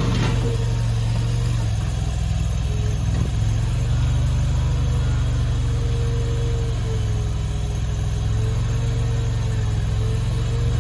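The 739cc gasoline engine of a stand-on mini skid steer loader running steadily, with a fainter higher hum that wavers slightly in pitch.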